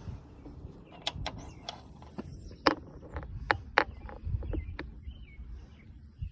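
Sharp clicks and knocks of hand tools and metal parts being worked on a lawnmower, about eight of them at uneven intervals, over a steady low rumble.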